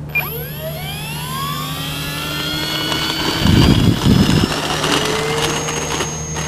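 FMS Cessna 182 electric RC plane's brushless motor and propeller spooling up for take-off. A whine rises sharply in pitch at the start, then keeps climbing slowly, with a brief low rumble about halfway through.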